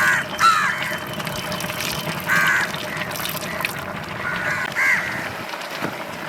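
Crows cawing, a few short calls over steady low background noise.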